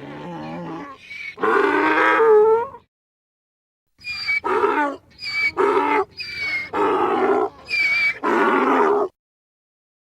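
Donkey braying: a long drawn-out opening call, a pause, then a run of rhythmic hee-haw pulses alternating high and low, which stops abruptly about nine seconds in.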